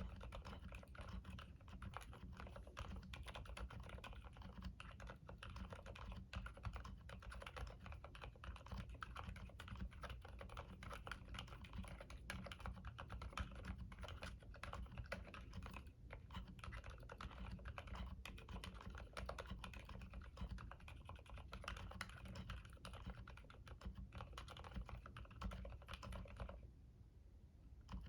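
Typing on a CIY X79 mechanical keyboard with Gateron Silent Black switches (100 g springs on the alphas) and OEM-profile keycaps: a steady stream of faint, damped keystrokes. It pauses for about a second and a half near the end.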